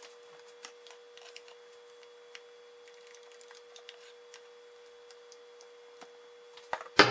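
Faint, scattered ticks and light scrapes of a spatula against a stainless steel mixing bowl and a plastic container as leftover chiffon filling is scooped out, over a faint steady hum. A single sharp click comes near the end.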